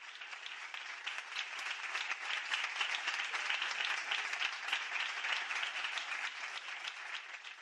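Audience applauding at the end of a song: dense, even hand-clapping from many people that tails off slightly near the end.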